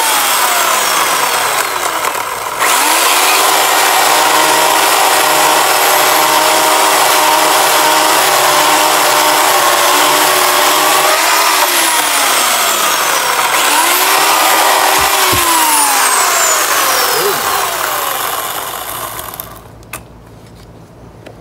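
Electric Craftsman chainsaw running and cutting into a tree stump, its motor whine over the hiss of the chain in the wood. The whine winds down each time the trigger is let off and spins back up when it is squeezed again, a few times over. The saw stops a couple of seconds before the end.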